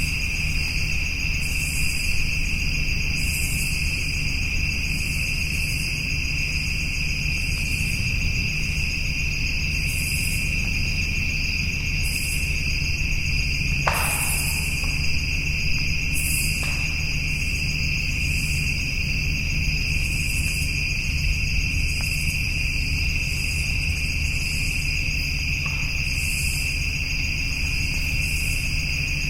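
Chorus of night insects: a steady high trill with shorter, higher pulsed calls repeating every second or two, over a low steady rumble. About halfway through comes one brief falling sound.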